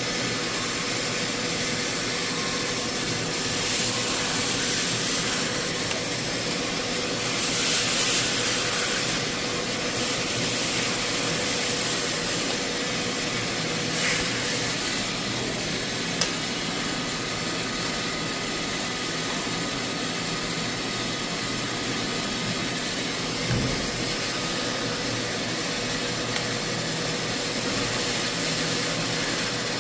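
CNC milling machine cutting steel: a steady machine hum with a constant tone, overlaid by hissing swells of cutting noise that come and go, and a sharp click about halfway through.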